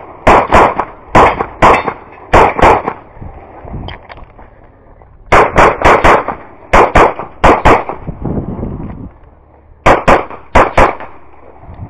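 Semi-automatic pistol firing rapid shots, mostly in quick pairs about half a second apart: double taps on each target during an IPSC practical shooting stage. The shots come in three bursts, with pauses of a couple of seconds where the shooter moves between positions.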